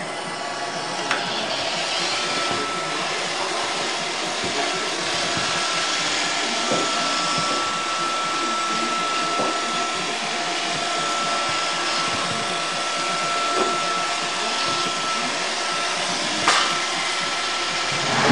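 iRobot Roomba 555 robot vacuum running: a steady whir with a thin, high, constant whine and an occasional sharp click.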